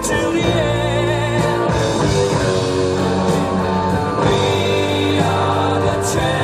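Loud music with a singing voice over rock-style instruments.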